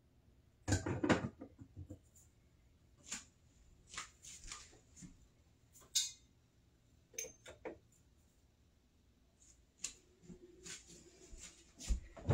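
Scattered knocks, clicks and clatter of someone moving about in a small kitchen, with the loudest cluster about a second in.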